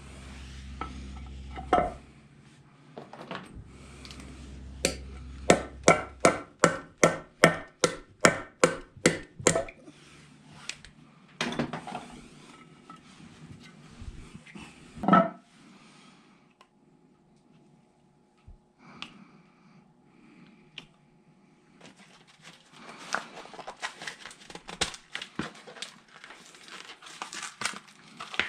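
Hand-tool work on a pool pump during a seal replacement. About five seconds in, a run of about a dozen sharp taps comes at roughly three a second, after a low hum. Scattered knocks and clatter follow, and dense rustling and clicking come near the end.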